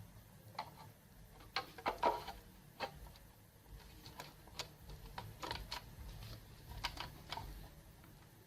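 Plastic cover of a small router-and-Nano UPS being fitted back onto its case: irregular light clicks and taps.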